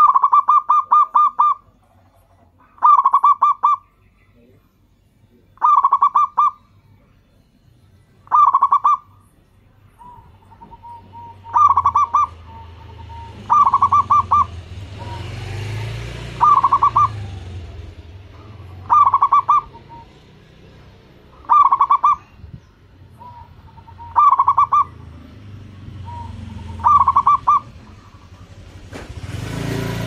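Zebra dove (perkutut) singing its cooing song: a phrase of rapid staccato notes about a second long, repeated every two and a half to three seconds. A low rumble rises behind it from about a third of the way in.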